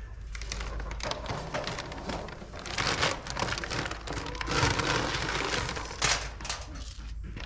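Chicken feed being scooped out of a feed bag inside a galvanized metal trash can: the bag crinkles and rustles in bursts as the metal scoop scrapes through the feed.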